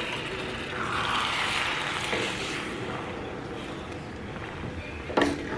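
Water poured from a measuring cup into a hot pan of fried rice and tomato sauce, hissing and sizzling, loudest a second or two in and then dying down. A wooden spoon stirs and knocks once against the stainless pan near the end.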